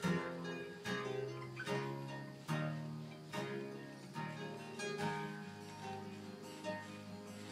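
Background music of plucked guitar, notes struck a little under a second apart, softening about two-thirds of the way through.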